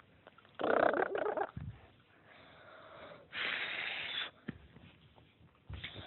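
A puppy making short breathy, wheezy sounds twice, about a second in and again near the middle, with a sharp click soon after the second.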